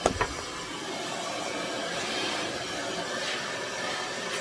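Aria Beauty infrared ionic blow dryer with its nozzle attached, running with a steady rush of air while drying hair. A short knock sounds near the start.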